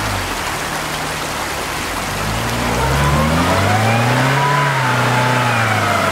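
UAZ Patriot SUV's engine revving as it crawls through muddy ruts: the pitch climbs from about two seconds in, peaks near the middle and falls away again, over a steady wet hiss of tyres working in mud.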